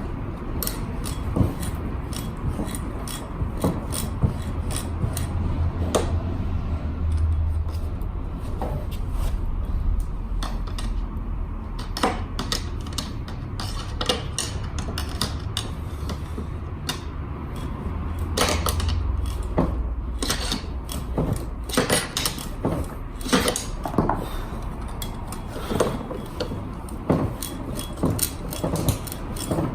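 Hand tools and metal parts clinking and clattering irregularly during work on a scooter's rear wheel, with a low rumble underneath.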